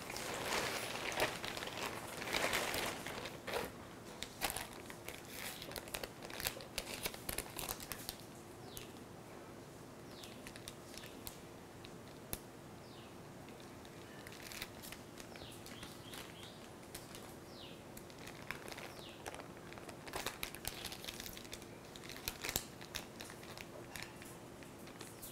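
Thin polythene sheet crinkling and rustling as it is handled, loudest in the first few seconds, then quieter scattered crinkles as the plastic is pressed onto a rolled-out potato papad and peeled off it.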